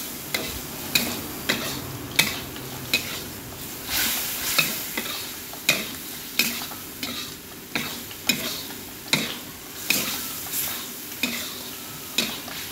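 Spatula stirring and scraping sliced beef in sauce around a wok, with sharp clanks against the pan roughly every half second to a second over the steady sizzle of frying.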